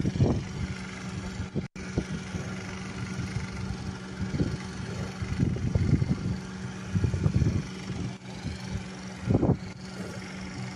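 Outdoor ambience from a phone recording: irregular low gusts of wind buffeting the microphone over a steady low hum. The audio drops out for an instant just before two seconds in.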